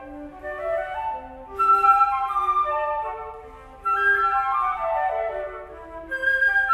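Two concert flutes playing a lively duet in quick notes, in a Latin-dance style, growing louder about a second and a half in and again near four seconds, with a falling run of notes a little past the middle.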